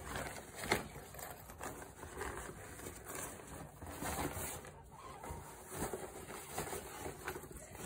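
Soft, irregular rustling of a fluffy blanket and a cloth bag being handled and bundled together, with a light knock just under a second in.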